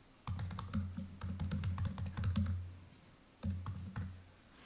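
Typing on a laptop keyboard: quick, irregular keystroke clicks. A low, steady hum comes in twice beneath them and drops away near the end.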